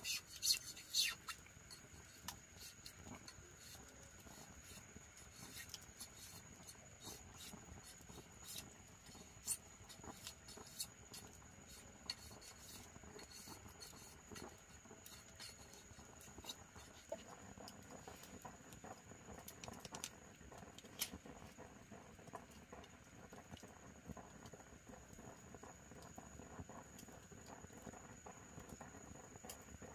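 Small campfire of dry bamboo and sticks crackling, with scattered sharp pops and snaps that are loudest in the first couple of seconds, over a steady high thin whine.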